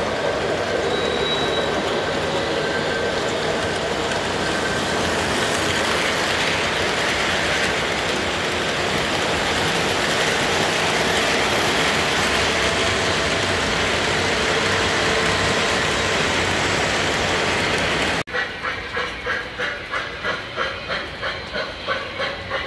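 O-gauge model trains rolling past on metal track: a steady rumble and clatter of wheels on the rails. About 18 seconds in, it cuts to a model steam locomotive chuffing at about three puffs a second.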